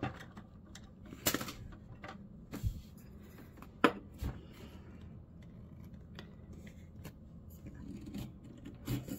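Scattered light clicks and taps of small plastic toy pieces being handled and set down on a plastic playset shelf, the sharpest about a second in and again near four seconds.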